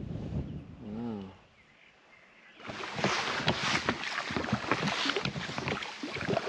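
Wind and splashing water, full of many small sharp patters, cutting in suddenly about three seconds in after a brief lull; before the lull, a short wavering call.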